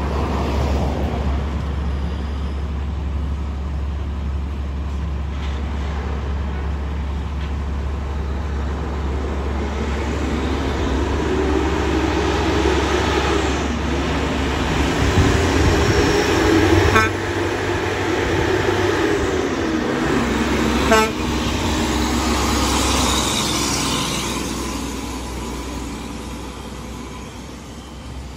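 Heavy diesel trucks, loaded dump trucks and a tanker, running in slow traffic with a steady low engine rumble. Horns toot through the middle stretch, with two short sharp sounds among them, and the engine noise fades near the end.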